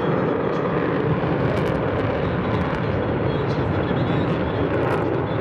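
Jet engines of a pair of Su-35S fighters flying at a distance, a steady rushing noise with no rise or fall.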